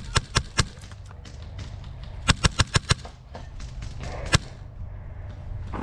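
Airsoft guns firing in quick strings of sharp cracks: a few shots at the start, a burst of about six a little after two seconds in, and a single shot past four seconds.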